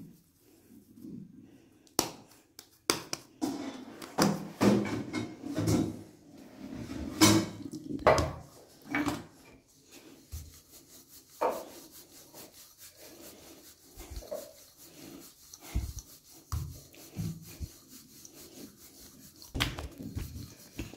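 Hands and a wooden rolling pin working stuffed dough on a marble rolling board: irregular knocks and rubbing scrapes, busiest in the first half, with a few dull thumps later.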